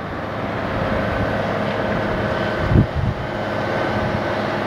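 Diesel engine of a Fuchs scrap material handler running steadily with a hum. A brief low thump comes about three seconds in.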